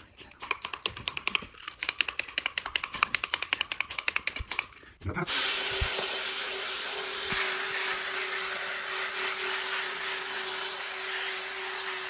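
A fast run of spritzes from a trigger spray bottle wetting the carpet mat with cleaning solution. About five seconds in, a drill with a carpet scrub brush starts and spins steadily against the mat with an even whirr.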